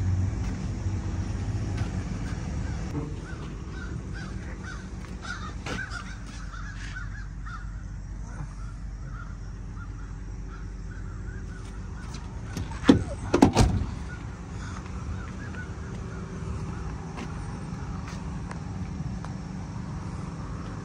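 Steady low engine rumble from scrapyard heavy equipment running, with a few loud sharp knocks close together about 13 seconds in.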